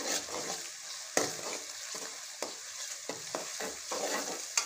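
Onions and ginger-garlic paste sizzling in hot oil in a karahi, stirred with a metal spoon that scrapes and knocks against the pan several times, with a sharp clack near the end.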